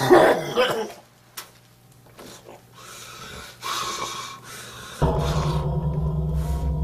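A person's heavy, uneven breathing. About five seconds in, a low, steady droning score starts suddenly.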